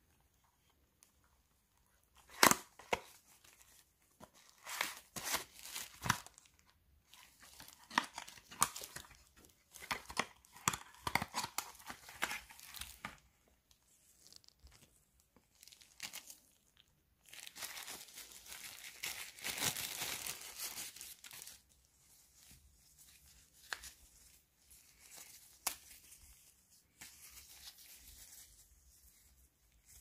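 Retail packaging of a USB cable being opened by hand. There is a sharp tear about two and a half seconds in, then a run of short tearing and crinkling strokes. A few seconds of steady plastic-wrapper crinkling follow, and lighter rustling near the end.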